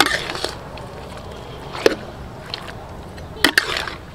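Metal utensil knocking and scraping against a steel wok while pig ears are turned in hot sauce, over a steady sizzle. One sharp knock at the start, another about two seconds in, and a quick double knock near the end.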